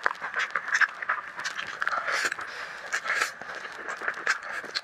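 Close-miked eating: curly instant noodles slurped and chewed, with many short wet mouth clicks and smacks and a couple of longer slurps about two and three seconds in.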